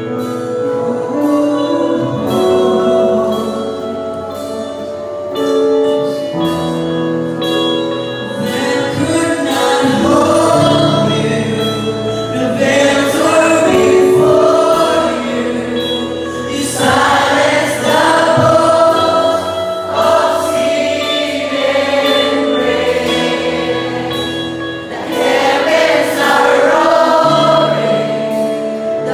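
A large crowd singing a worship song together over held instrumental chords; the voices come in fuller from about nine seconds in and swell louder in waves.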